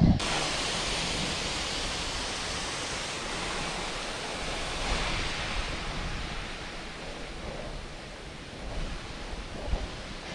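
Steady rushing of air over an action camera's microphone while riding a road bicycle, starting abruptly with a low thump and easing a little after the halfway point.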